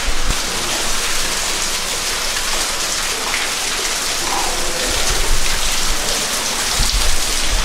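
Waterfall inside a rock cave: a steady hiss of falling, splashing water.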